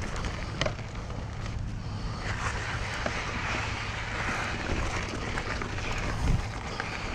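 Mountain bike rolling along a dirt trail: a steady low rumble of tyre and wind noise with scattered rattling clicks, and a single louder thump a little over six seconds in.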